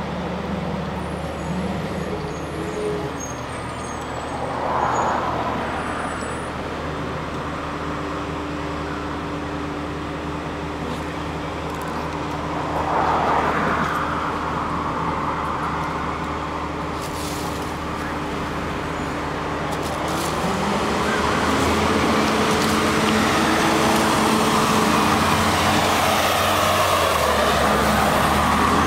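Street traffic: motor vehicles running and passing, with a steady low engine tone throughout. About two-thirds of the way through, the engine pitch rises and the traffic grows louder.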